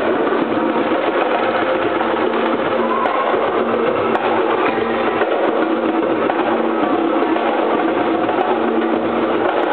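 Live traditional Malay ensemble music: bamboo angklung shaken in a fast, continuous rattling tremolo, with drums and a xylophone-type instrument playing along.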